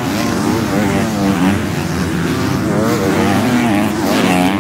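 Several 250cc motocross bikes racing, their engines revving up and down together with the pitch rising and falling over and over as they accelerate, shift and jump.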